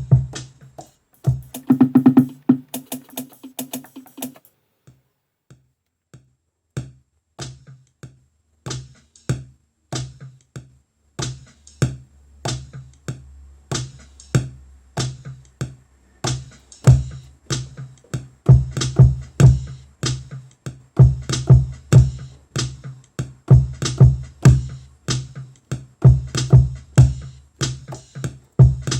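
Hip-hop beat played from an Akai MPC Live sampler. A short sampled phrase comes near the start, then after a brief pause, drum hits come in at a steady tempo. A sub bass line joins them, and the pattern grows fuller about halfway through.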